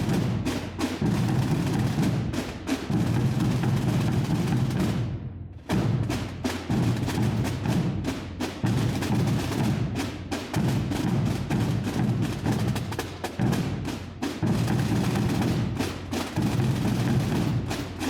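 Massed drums of a Holy Week tamborada, many drummers beating at once in a dense, continuous roll, with a brief dip about five seconds in.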